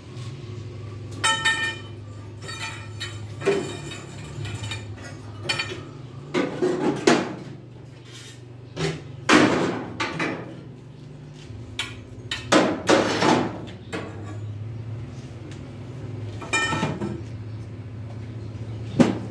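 Hammer blows on steel parts, heard as irregular clanks and knocks, some of them ringing, while a stabilizer bushing is fitted. A steady low hum runs underneath.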